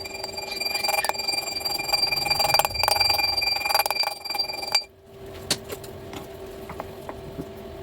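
Electric motor of a workshop machine running with a steady whine, with clicks and rattling over it; the louder part cuts off suddenly about five seconds in, leaving a quieter whine.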